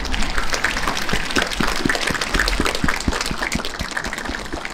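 Applause: many people clapping, a dense, steady patter of hand claps.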